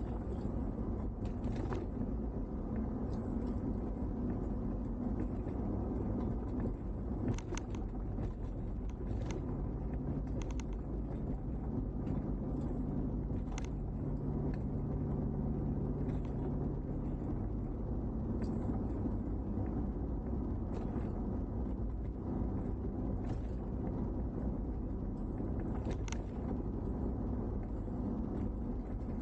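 Car driving along a mountain road, heard through an in-car camera: steady engine and tyre rumble, with a low steady hum that strengthens for several seconds in the middle. Scattered light clicks and ticks recur throughout.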